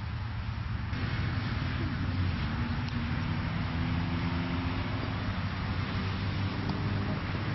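A motor vehicle's engine running, a steady low hum that gets louder about a second in.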